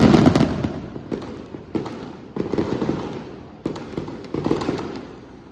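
Fireworks going off in a run of crackling bangs, loudest at the start, with several more bursts following at uneven intervals and dying away near the end.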